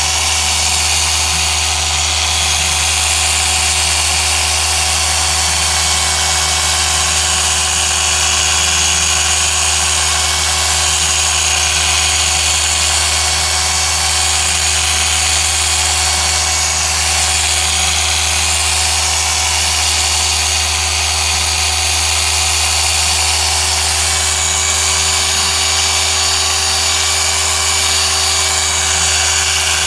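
Rupes mini polisher running steadily, its small yellow foam pad spinning against a car's plastic rear light lens as it polishes the lens with medium compound. The motor sound holds one even pitch and level with no breaks.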